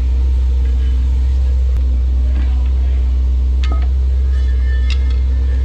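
A loud, steady low rumble from running machinery, with a faint steady hum above it and a few light clicks.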